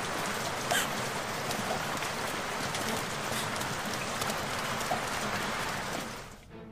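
Heavy, steady rain falling, fading out near the end.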